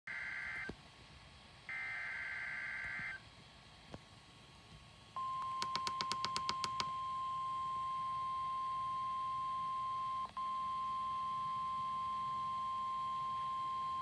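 Emergency Alert System warning received on a Midland weather radio and played through its speaker. Two short buzzy bursts of SAME digital header data, the first cut off under a second in and the second about two to three seconds in, are followed about five seconds in by the long, steady, single-pitch NOAA warning alarm tone, which drops out briefly near ten seconds. Over the tone's first second and a half there is a quick run of about eight clicks.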